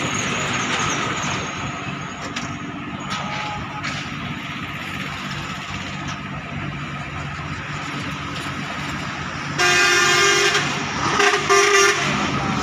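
Steady low engine hum, then near the end a vehicle horn sounds twice: a blast of about a second, then a shorter one.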